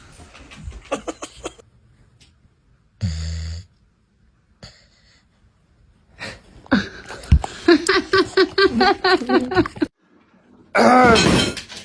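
A dog vocalizing: a long run of short, pitched whining and grumbling calls in the second half, with a louder burst near the end.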